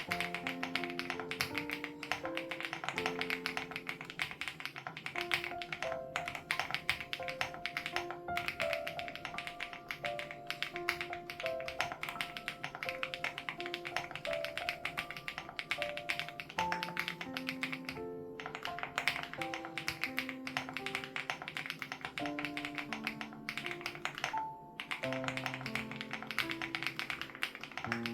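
Fast, continuous typing on a Crush80 Reboot mechanical keyboard with HMX Hyacinth switches, a dense run of keystroke clacks that stops briefly twice. Background music of soft, held notes plays underneath.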